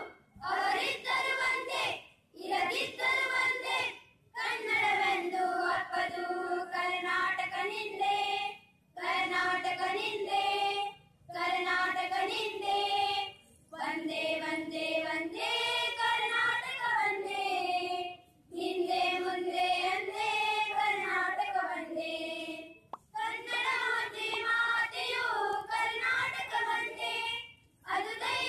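A group of schoolgirls singing a song together in unison into handheld microphones, in phrases of a few seconds broken by short breath pauses.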